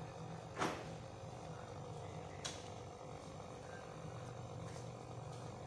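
Faint steady hum with a short sharp knock about half a second in and a lighter click about two and a half seconds in, typical of parts and tools being handled on a workbench.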